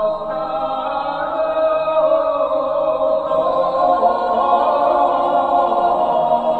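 Background choral music: voices singing slow, chant-like lines with long held notes.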